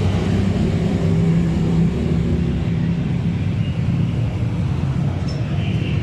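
Motorcycle engine running steadily, a low, even hum with street noise around it.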